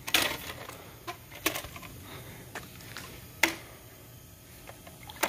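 Scattered sharp clicks and knocks, a few louder ones about a second or two apart, from handling a long pool pole while reaching it out over the water.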